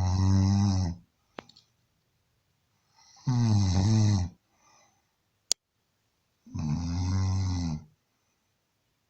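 A man snoring in deep sleep: three long snores about three seconds apart, each lasting about a second. A sharp click sounds between the second and third snores.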